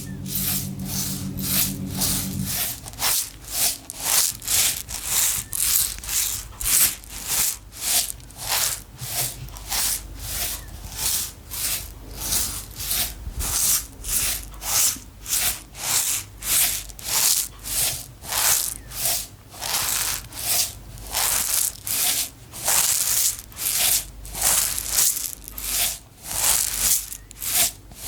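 Small hard dry pieces shaken back and forth in a container, rattling and hissing in a steady rhythm of about two shakes a second.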